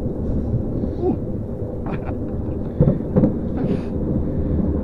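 Small steel family roller coaster car rolling along its track: a steady low rumble from the wheels and wind buffeting the microphone, with a steady hum and a few sharp clacks from the car and track.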